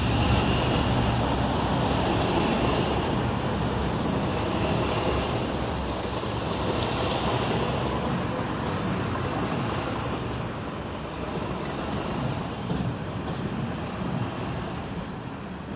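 English Electric Class 37 diesel locomotive and its train pulling away: the rumble of the V12 engine and the rolling coaches fade steadily.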